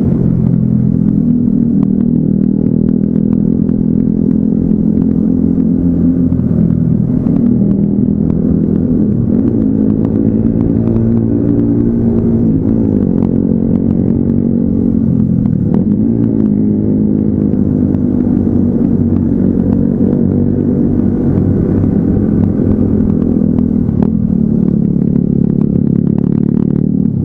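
Yamaha Nmax 155 scooter's single-cylinder engine running steadily at riding speed. Its pitch dips and climbs a few times near the middle as the speed changes.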